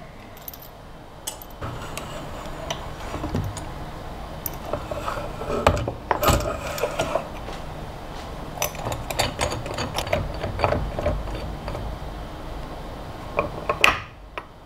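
Metal machine vise being handled and set in place on a CNC engraver's aluminium T-slot bed: scattered clicks, knocks and metal-on-metal scraping.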